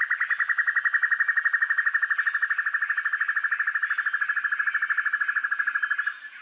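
Black-and-yellow broadbill (sempur-hujan rimba) calling: a long, fast, even series of short notes at about ten a second, quickening slightly, that stops abruptly near the end.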